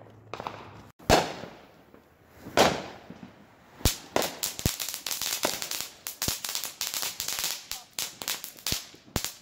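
Fireworks going off: two loud bangs about one and two and a half seconds in, each trailing off in an echo, then from about four seconds in a quick, continuing run of sharp pops and cracks.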